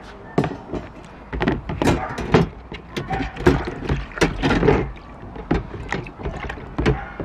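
Wire barbecue grill basket being put into a plastic tub of soapy water and pushed under: irregular clatters and knocks of metal against the tub, with water sloshing and splashing.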